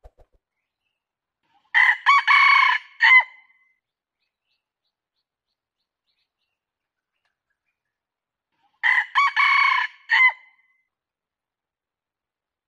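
Red junglefowl rooster crowing twice, about seven seconds apart. Each crow is short and broken into a few clipped notes.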